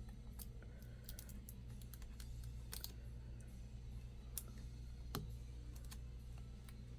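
Scattered light clicks and taps from small laptop parts being handled during reassembly, a couple of them a little louder about four and five seconds in, over a low steady hum.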